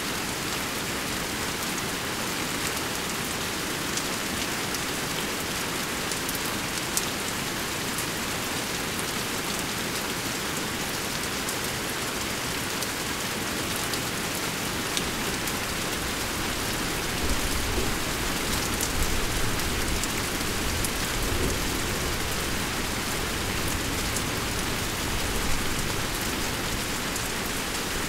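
Steady rainfall pattering on surfaces, a continuous even hiss with scattered individual drop hits. A low rumble swells in about two-thirds of the way through.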